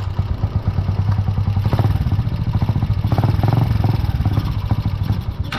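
Small motorcycle engine running with an uneven, pulsing exhaust beat; water has got into the muffler.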